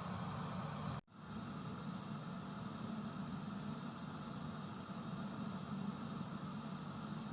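Gas heater hissing steadily. The hiss cuts out suddenly about a second in and fades back up within half a second.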